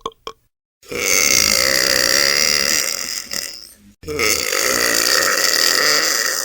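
Two long, drawn-out burps one after the other, each lasting about three seconds and joined by an abrupt cut, with the clipped end of an earlier burp at the very start.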